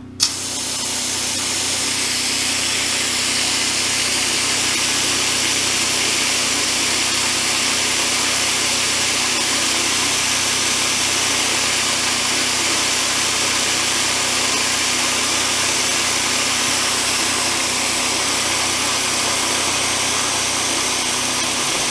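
Water running hard from a fully opened spigot on a well system, a loud, steady hiss that begins the moment the valve is opened. It drains the pressure tank; the system pressure is falling toward the point where the well pump cuts in.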